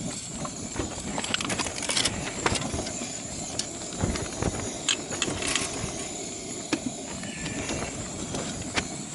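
Small souffle pots clinking and knocking as they are set into a homemade aluminium camping oven, and the oven's metal front panel rattling shut, over a steady rushing noise.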